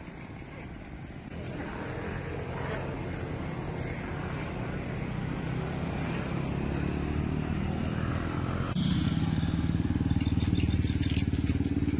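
A motor vehicle engine runs steadily, jumping suddenly louder about nine seconds in.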